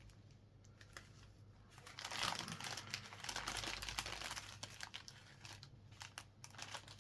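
Small plastic bags of diamond-painting drills being handled and sorted, crinkling with many small crackles from about two seconds in.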